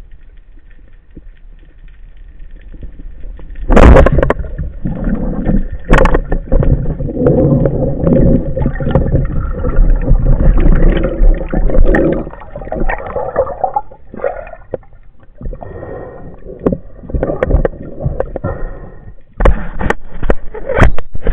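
Underwater, a sharp crack about four seconds in, consistent with a band-powered speargun firing, followed by a second knock. Then comes a long stretch of churning water noise and knocking as the diver moves and handles the speargun shaft and its shooting line.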